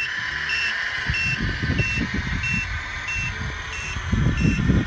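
Reversing alarm from the sound module of a 1/14 Tamiya Mercedes-Benz Actros RC truck, a short high beep repeating evenly about one and a half times a second while the truck backs up. Low rumbling swells come in near the end.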